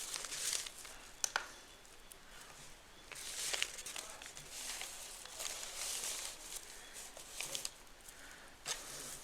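Rustling of a takeaway food parcel being handled while it is weighed, with a few sharp clicks and knocks.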